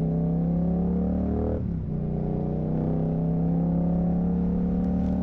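A Yamaha R7's 689 cc parallel-twin engine running through an Akrapovic full-carbon exhaust with the dB killer removed, as the bike accelerates. The engine note climbs steadily, drops sharply on an upshift about one and a half seconds in, then climbs again.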